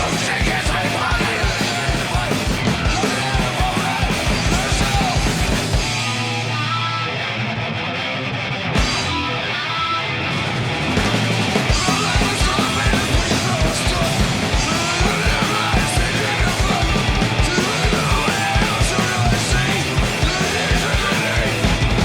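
Live punk rock band playing loud, with distorted guitars, bass and pounding drums, possibly with shouted vocals. The band drops back for a few seconds about six seconds in, then comes back in full about eleven seconds in.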